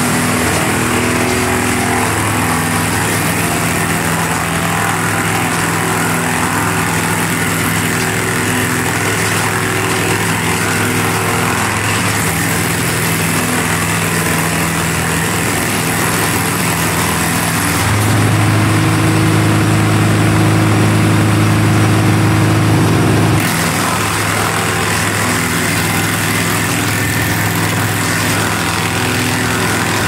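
Towable wood chipper's engine running steadily as branches are fed through it. It gets louder and deeper for about five seconds around two-thirds of the way through, then settles back.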